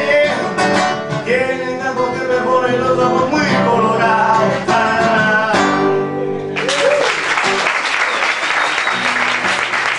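A sung song with guitar reaching its last held note and stopping about two-thirds of the way in, followed at once by an audience applauding.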